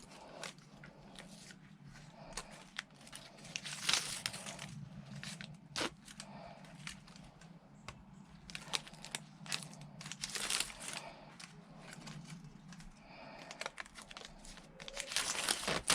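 Self-amalgamating tape being stretched and wrapped around a rope: irregular crinkling, tearing rustles with a few sharp clicks, over a steady low hum.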